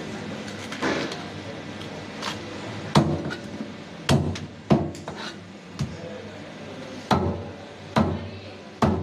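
Cleaver chopping through a whole fish into a thick round wooden chopping block: about eight heavy chops, unevenly spaced roughly a second apart.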